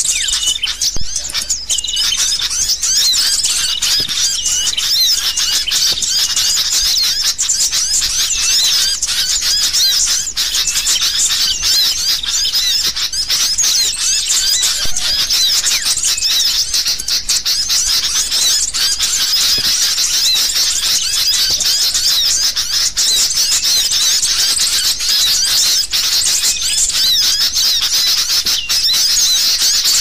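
Bird-lure recording of sooty-headed bulbuls (kutilang) calling excitedly: a loud, unbroken, busy chatter of many overlapping high chirps.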